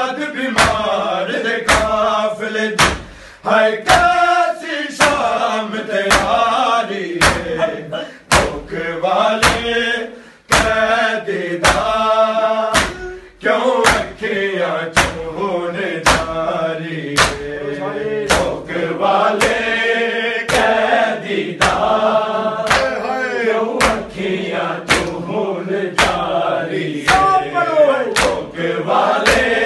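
A group of men chanting a Punjabi noha lament, over a steady beat of sharp slaps from bare-handed chest-beating (matam).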